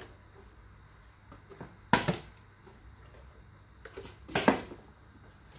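Small plastic water bottle, partly filled, hitting a tile floor in bottle flips: a hard clatter with a quick bounce about two seconds in, and another about four and a half seconds in.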